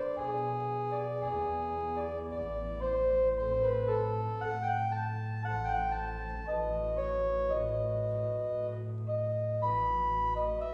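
Pipe organ playing slow held chords over a pedal bass line that steps to a new low note every second or two.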